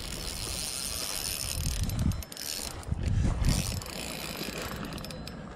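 Spinning reel clicking and ratcheting, with the drag and gears working while a big fish pulls on the line. Two low rumbles about two and three seconds in are louder than the reel.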